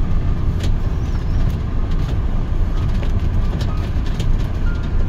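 Motorhome driving slowly, heard from inside the cab: a steady low engine and road rumble with scattered sharp clicks.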